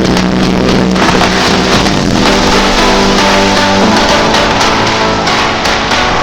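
Loud background music with guitar and a steady drum beat.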